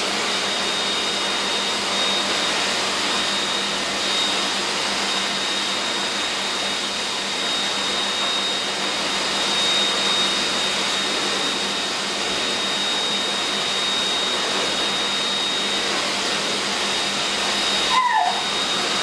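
High-velocity pet dryer blowing air through its hose and nozzle: a steady rush of air with a thin, high, steady whine, dipping briefly near the end.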